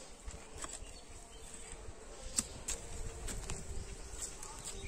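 Dry soil crunching and scraping as it is dug with a long-handled hoe and pressed down by hand, with scattered sharp knocks, the sharpest about halfway through. A faint steady buzz of insects runs underneath.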